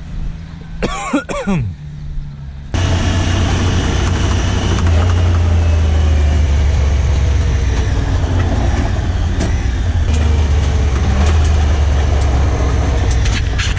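A vehicle engine running steadily, with a brief wavering call about a second in. Near three seconds in the sound jumps abruptly to a much louder, steady low engine drone mixed with rumbling noise.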